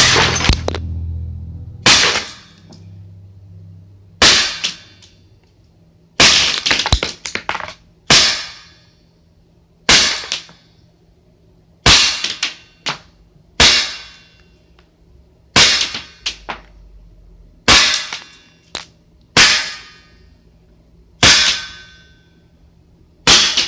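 Daisy-made Winchester 1911 CO2 blowback BB pistol firing about a dozen single shots, one roughly every two seconds with a quick cluster of several shots around six seconds in, each a sharp crack with a short ringing tail.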